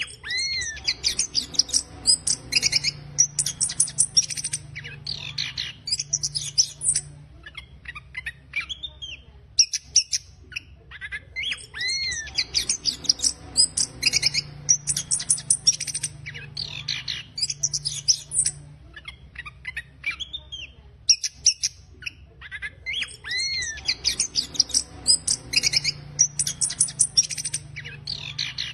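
Chestnut-capped thrush (anis kembang) singing its coarse, rapid twittering song, known as ngeriwik kasar: dense high chattering notes mixed with arched whistled glides, in long runs broken by short pauses about every ten seconds.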